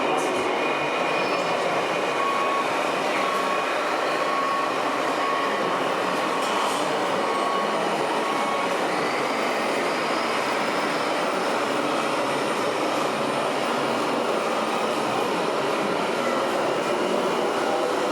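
Remote-control scale model trucks running: a steady mechanical whirr and rolling noise that stays even throughout.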